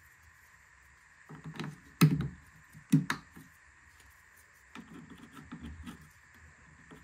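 Clips being slid and pressed onto a headlight assembly by hand: two sharp clicks about two and three seconds in, with quieter knocking and handling noise around them.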